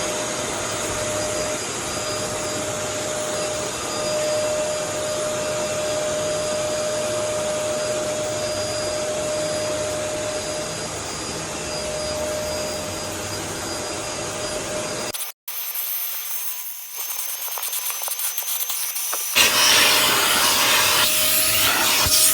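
Eureka Mighty Mite 3670H canister vacuum running: a steady rush of air with a motor whine. About fifteen seconds in the sound cuts out for an instant and comes back thinner, then from about nineteen seconds it is louder and rougher.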